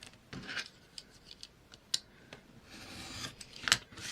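Scissors snipping paper a little shorter, a few short cuts with light paper rustling, and a sharp click near the end.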